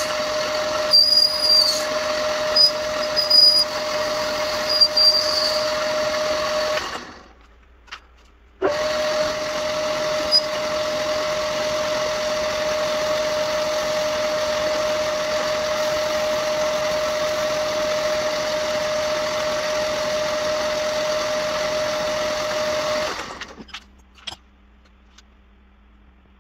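Metal lathe running with a steady whine while turning a bronze part, the cutting tool giving short high-pitched squeaks in the first few seconds. The lathe stops about seven seconds in, starts again about two seconds later and runs steadily with a hiss as abrasive paper polishes the spinning part, then stops about 23 seconds in, followed by a few light clicks.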